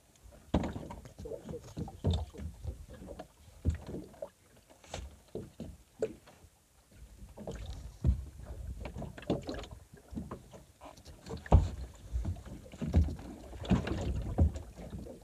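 Water splashing and slapping against the side of a small boat, with uneven knocks and wind rumble on the microphone. A hooked fish thrashes at the surface as it is pulled alongside and grabbed by hand.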